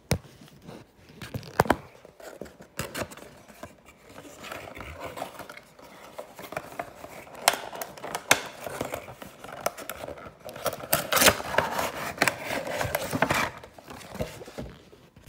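Packaging being opened by hand: irregular crinkling, scraping and rustling of plastic and cardboard, with several sharp clicks, busiest and loudest a couple of seconds before the end.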